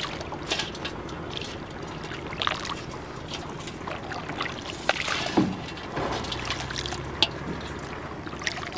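Water trickling and lapping around a wooden fishing boat, with scattered small clicks and a few knocks.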